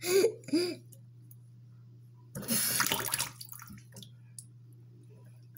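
A hand splashing and sloshing standing water in a bathroom sink basin that won't drain because it is clogged with wet toilet paper. One main burst of splashing lasts about a second, around halfway through.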